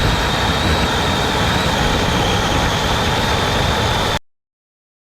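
DeWalt DCCS620 20V battery chainsaw running at full speed with a steady high motor and chain whine, cutting into a thicker branch; the sound cuts off suddenly about four seconds in.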